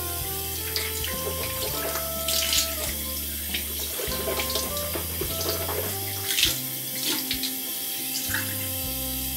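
Water running from a bathroom sink tap, with a few louder splashes, over background music of held notes.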